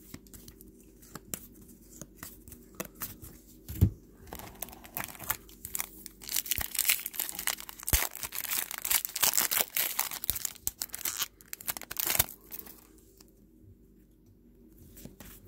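A foil trading-card pack wrapper being torn open and crinkled: a dense crackling rustle lasting about seven seconds in the middle. Before it come soft scattered flicks of cards being handled.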